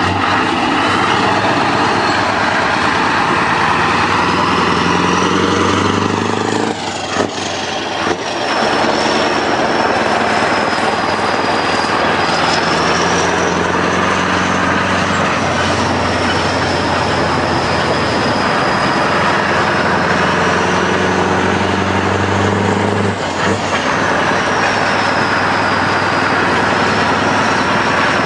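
Heavy lorry running with a steady mechanical drone, broken briefly by a short dip and a few clicks about seven seconds in and again near the end of the second third.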